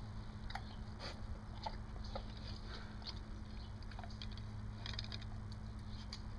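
Dog eating from a stainless steel bowl: scattered small wet clicks and smacks of chewing, over a low steady hum.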